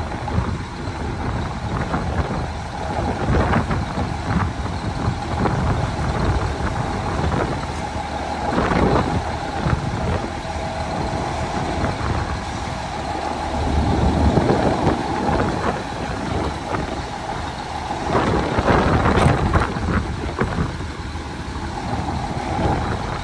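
Heavy dump trucks running, with several loud knocks and clanks standing out over the steady engine noise.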